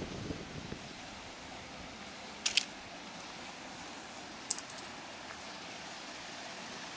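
Steady rush of water from a channel outflow churning into a river. A quick pair of sharp clicks comes about two and a half seconds in, and another about four and a half seconds in.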